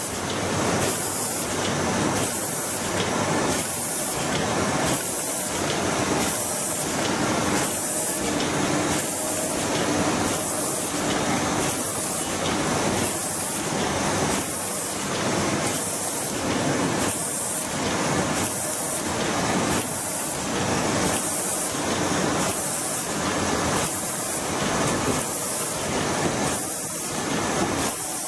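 CNC-controlled automatic flat screen printing machine running: a steady hissing machine noise that pulses evenly, roughly once a second, as it cycles.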